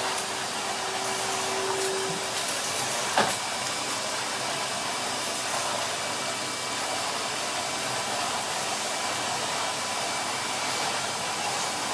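Numatic Henry canister vacuum cleaner running steadily, with a short knock about three seconds in.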